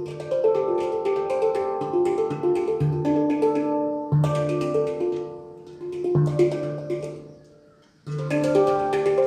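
Handpan being played: ringing melodic notes over a low bass note struck every second or two. The notes die away near the end, then a fresh phrase starts about eight seconds in.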